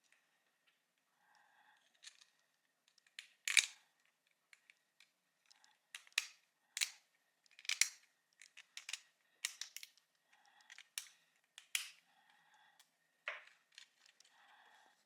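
Irregular sharp clicks and snaps of hard 3D-printed plastic parts being handled and fitted together, a dozen or so, the loudest about three and a half seconds in.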